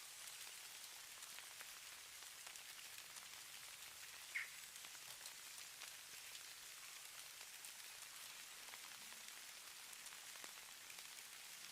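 Falling snow pattering softly: a faint, steady hiss of many fine ticks, like light rain. About four seconds in, one brief high-pitched sound stands out above the patter.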